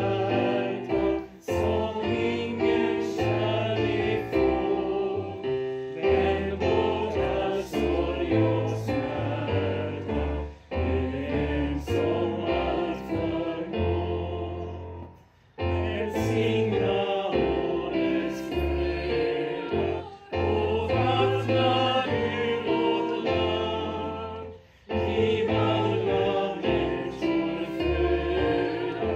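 A choir singing a hymn with keyboard accompaniment under it. The phrases are separated by short pauses.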